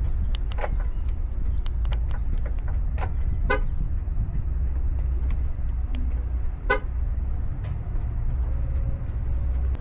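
A car driving, with a steady low rumble of engine and road noise and a few scattered light clicks.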